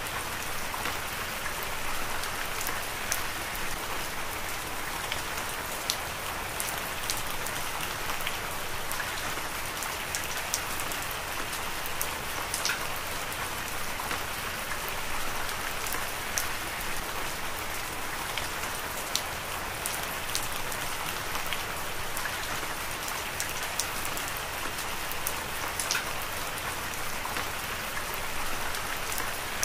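Heavy rain falling steadily: an even hiss with frequent sharp ticks of individual drops striking a surface.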